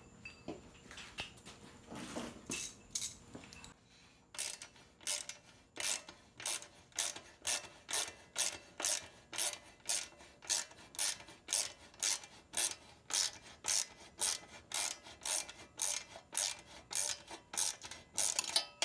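Socket ratchet turning a motorcycle's lower rear-shock mounting bolt to loosen it. After a few scattered clicks and clinks, the ratchet clicks in a steady rhythm of about two strokes a second.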